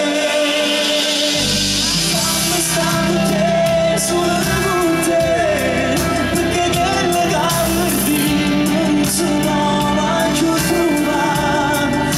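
Live band playing a Neapolitan pop song with a male singer, electric guitar and keyboards. The band's low end comes in about a second and a half in, filling out the sound.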